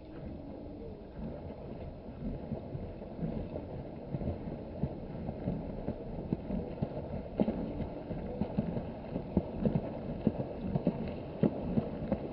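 Mute swans fighting on the water: wings slapping and splashing the surface in irregular thumps, coming thicker and louder toward the end.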